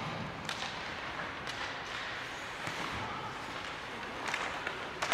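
Ice hockey play in a rink: a steady hiss of arena noise with several sharp clacks of sticks and puck, the loudest one at the end.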